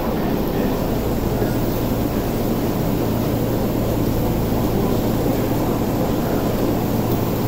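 Steady drone of an electric commuter train standing at the platform, with a low hum underneath.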